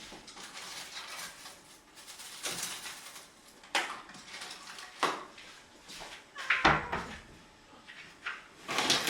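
Irregular rustling and handling noises with a few knocks, the loudest a thump about two-thirds of the way through.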